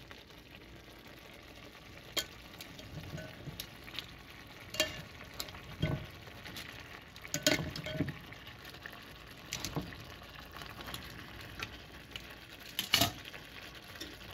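Whole pigeons being laid one by one into a frying pan of frying onion-and-spice masala: a low frying sizzle with scattered clicks and knocks as the birds and utensils meet the pan, the loudest knock near the end.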